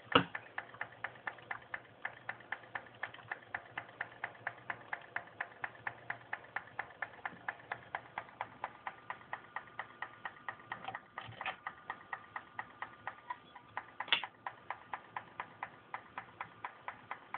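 Hard drive inside a LaCie LaCinema Classic clicking steadily, about four to five clicks a second, with a faint high beeping tone under the clicks and a louder click just after the start and another near the end. The owner takes the clicking and beeps for failing read/write heads.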